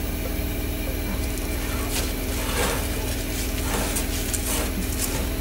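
Metal cake tin and oven wire rack clinking and scraping as the tin is slid out and turned round in a small galley oven: a few scattered light knocks over a steady low hum.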